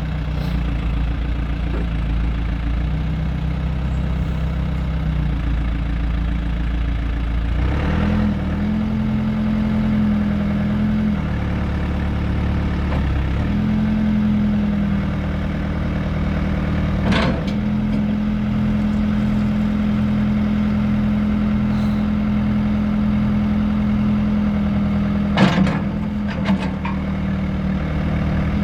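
1996 John Deere 310D loader backhoe's four-cylinder diesel engine running steadily. Its speed steps up about a quarter of the way in and again a little past halfway, then holds. A few sharp clunks come a little past halfway and twice near the end.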